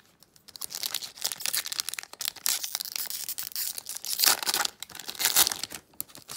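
A 2021 Donruss Football retail card pack's wrapper being torn open and crinkled in a run of crackly rips lasting about five seconds, loudest near the end.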